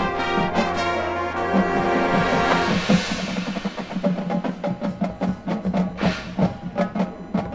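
High school marching band playing: a sustained brass chord, then a swell about three seconds in, giving way to rapid drum and percussion strikes over a held low note.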